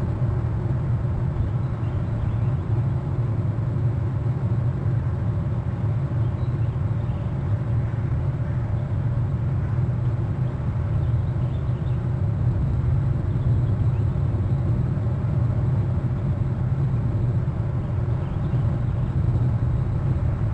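Steady low rumble carries through, with faint trilling calls of a bald eagle passing overhead partway through.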